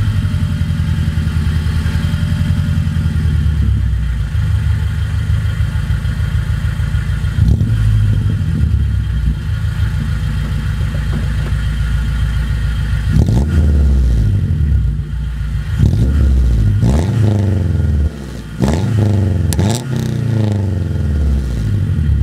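Honda Civic del Sol's D15B7 four-cylinder engine with an unequal-length header, heard at the tailpipe: it idles with a low, Subaru-like rumble, blips once, then is revved several times in quick succession in the second half. The unequal-length header gives the four-cylinder a boxer-like exhaust note.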